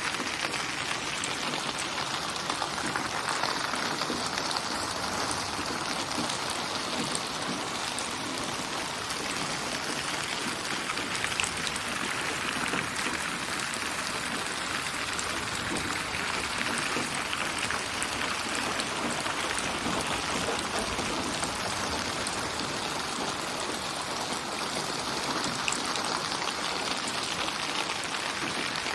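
Steady rain falling on surfaces, a dense patter of raindrops, swelling and easing slowly. The rain is a synthesised white-noise soundscape built from many rain recordings and panned around the head in binaural '8D' sound.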